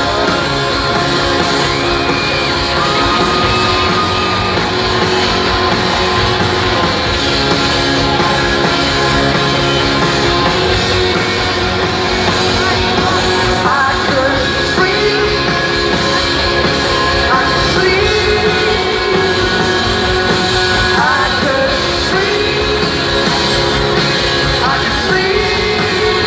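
Live rock band playing with a singer, heard from the audience in a large hall.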